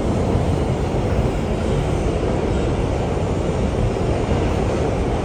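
Steady rumble and rush of a New York City subway 7 train car (R188) running between stations, heard from inside the car.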